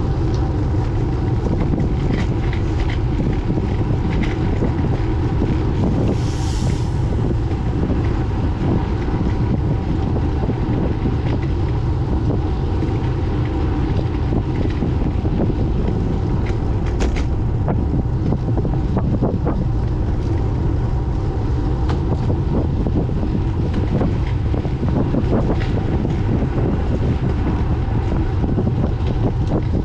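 Wind buffeting the microphone of a bike-mounted camera while cycling: a steady, loud rumbling noise.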